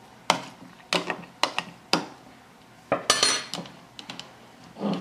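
Metal spoon knocking and scraping against a blender cup while pressing freshly churned butter: four sharp clicks about half a second apart, then a longer rattling scrape about three seconds in, and one more knock near the end.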